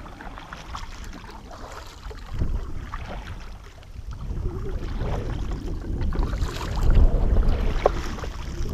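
Double-bladed kayak paddle strokes splashing in calm water beside a kayak, with wind rumbling on the microphone.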